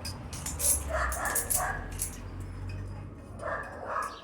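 A dog barking: a quick run of short barks about a second in and two more near the end, with a few sharp clicks in between.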